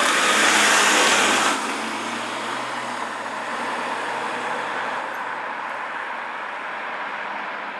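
BMW 328i coupe driving past and away: a loud rush of engine and tyre noise in the first second and a half, dropping off suddenly, then the straight-six's steady drone fading as the car draws away.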